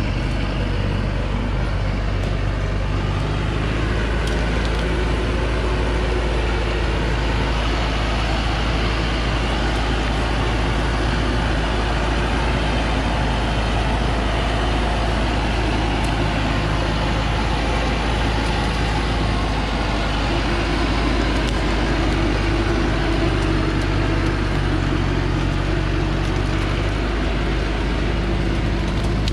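Diesel engine of a heavily loaded Thaco Foland logging truck running steadily under load.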